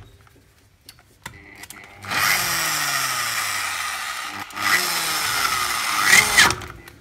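Power drill boring out a caliper-mount bolt hole in a car's front hub carrier, to take a Helicoil thread insert. It runs twice: from about two seconds in, then after a brief stop at four and a half seconds, until it stops near the end. The motor's pitch drops as it works.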